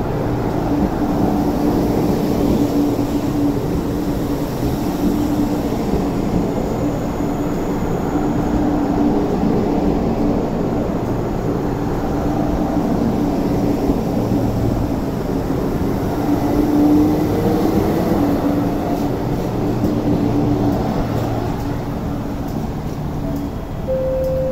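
MTR East Rail Line MLR electric multiple unit rolling past the platform: a steady rumble of wheels on rail with a steady hum running under it. Near the end a brief two-note tone sounds.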